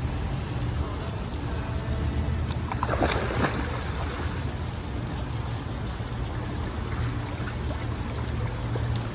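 Pool water splashing and churning as a person drops down into it about three seconds in, over a steady low rumble.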